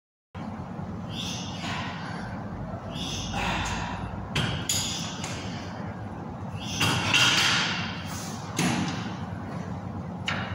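Cable weight-stack machine being worked through rows: repeated swishing strokes every second or two, a couple of sharp knocks, and a steady low hum underneath.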